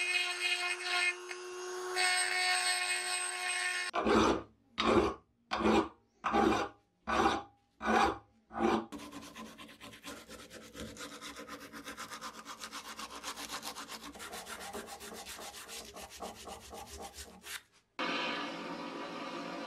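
Small rotary tool with a burr whining as it grinds the metal burner housing of a vintage petrol blowtorch. Then hand sanding of the housing with abrasive cloth: about seven slow rubbing strokes, followed by a long run of quick, short strokes. Near the end a different steady rushing noise begins.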